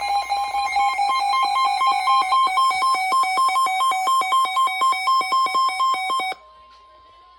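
Weather alert radio's electronic alarm: a loud, buzzy warble flipping rapidly between two pitches, signalling an incoming severe thunderstorm warning. It cuts off suddenly about six seconds in, leaving a faint steady tone.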